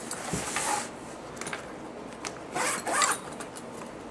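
Condor Modgear Ultimate Carbine Case, a padded fabric rifle case, being handled and flipped over on a table: its fabric rustles and scrapes in two longer bursts, at the start and about three-quarters of the way in, with a few light clicks from its buckles and clips in between.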